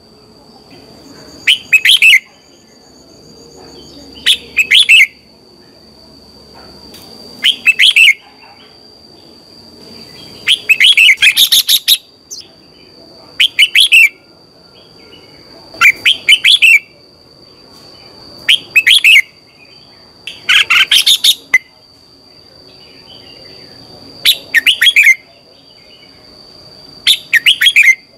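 Red-whiskered bulbul singing: short, loud, clear chirping phrases of under a second each, repeated about every two and a half to three seconds.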